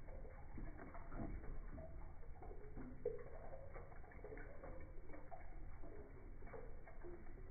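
Aquarium water sounds played slowed down: irregular low blips and gurgles of bubbles and drips over a steady low hum.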